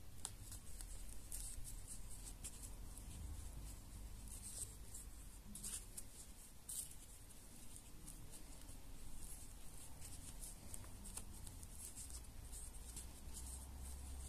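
Faint scratchy rustling of a metal crochet hook and yarn being drawn through the edge of a felt shoe sole, in short irregular strokes over a steady low hum.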